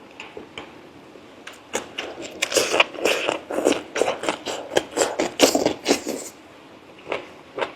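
Close-up eating sounds from someone eating braised pork leg: a dense run of wet chewing and lip-smacking clicks for several seconds, thinning out to a few single smacks near the end.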